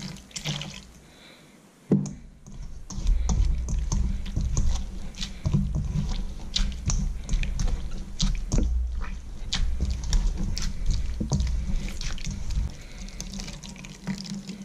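Wet grated coconut being kneaded and squeezed by hand in a stainless steel bowl to press out coconut milk, giving irregular squelching and dripping. A short splash of water being poured in comes first, then a brief lull before the steady squishing starts about two seconds in.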